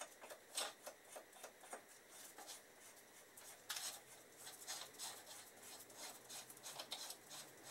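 Faint small clicks and light rubbing of a steering-stem locking nut being threaded by hand onto the stem of a Suzuki Hayabusa, with a slightly louder cluster of clicks a little before the middle.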